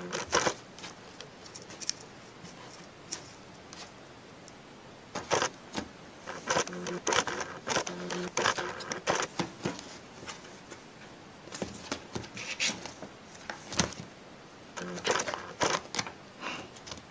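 Kitten and owl scuffling in play: quick taps and scratchy scrapes of claws and feet, coming in bursts with short quiet pauses between.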